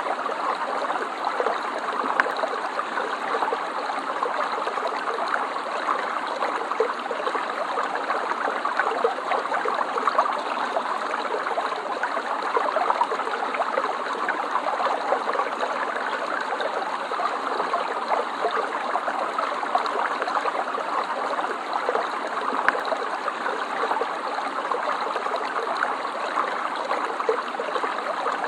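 Stream water flowing and trickling over stones, a steady babble with small splashes and gurgles.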